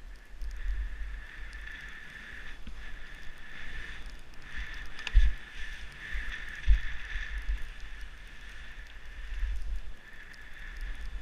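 Skis hissing as they slide over packed powder, with wind buffeting the camera microphone. Two sharp thumps come about five and six and a half seconds in, as the skis hit bumps.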